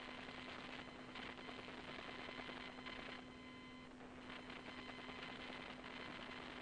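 Faint steady hum with patches of crackly static that come and go every second or so.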